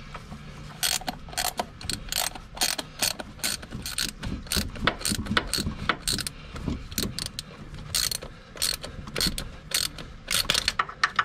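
Hand ratchet clicking as it runs a Torx bolt down into a Jeep 4.0's oil filter adapter, in short strokes of clicks with a quicker run of clicks near the end.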